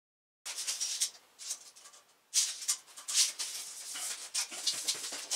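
Irregular gritty scuffing and shuffling, like sneakers on a dusty concrete floor, starting suddenly about half a second in and coming in uneven bursts.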